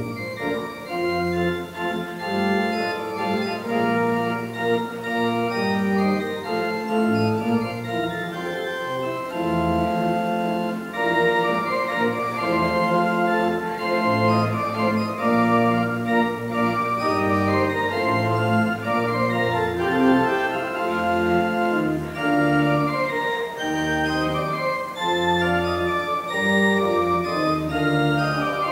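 Church organ playing slow music: held chords over deep bass notes that change every second or so.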